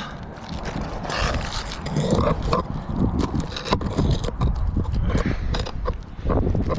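Irregular scraping and clicking of tools against asphalt shingles as shingles are pried up and their seals broken, over a low rumble of wind on the microphone.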